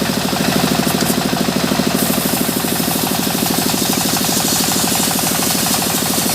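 Engine of a sawmill running steadily with a rapid, even pulse.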